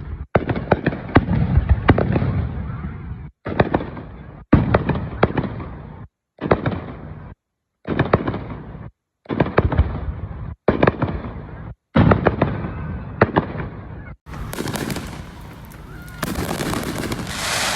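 Aerial fireworks bursting: a rapid series of sharp bangs with low rumbling echoes. The sound drops out completely several times. Over the last few seconds the bangs give way to a steadier hiss.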